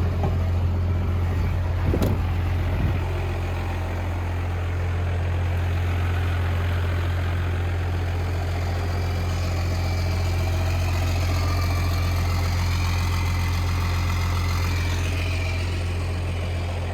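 Truck engine idling steadily as a constant low drone, with a brief click about two seconds in.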